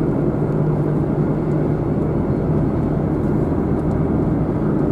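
Steady drone of a car's engine and tyres heard from inside the cabin while driving.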